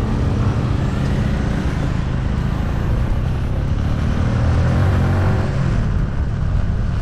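Motorcycle engine running steadily while riding, with road and wind noise.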